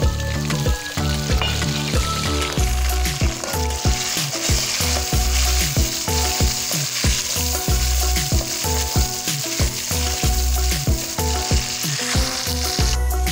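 Tomatoes and sliced onions sizzling in hot oil in a steel pot, stirred with a metal spatula. The sizzle cuts off suddenly near the end, over background music with a steady beat.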